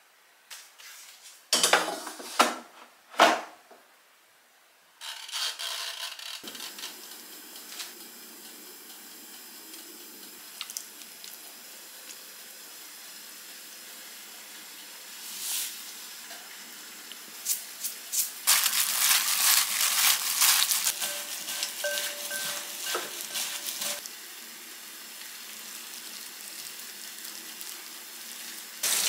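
Kitchen prep sounds: three sharp knocks a couple of seconds in, then cut cucumbers being mixed with seasoning in a glass bowl with a wooden spoon, with scraping and clinks. The mixing is busiest over a few seconds past the middle.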